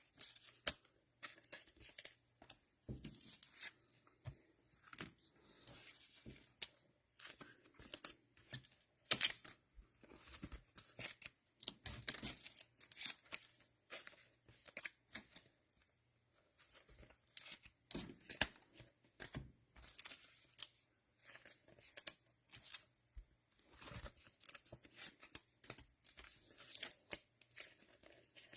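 Faint, irregular rustling, crinkling and small clicks of trading cards and their plastic wrappers and sleeves being handled and sorted.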